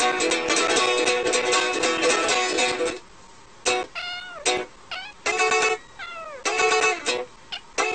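Plucked-string background music with a cat meowing over it several times, mostly in the second half, where the music thins out into separate notes.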